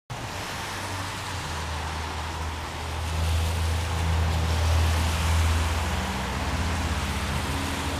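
Motor vehicle driving: a steady low engine drone under road noise, swelling louder in the middle and easing off again.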